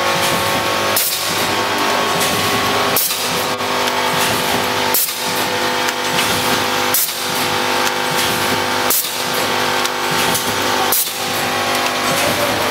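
HMK1600 edge-spout doy pack packing machine running through its cycle: a short, sharp hiss of air venting from its pneumatic cylinders about every two seconds, over a steady hum.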